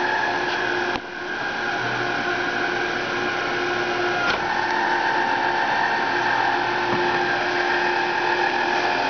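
Artificial-turf roller machine running: its electric drive and rollers make a steady whine with several held tones. The level dips briefly about a second in, and there is a sharp click around four seconds in.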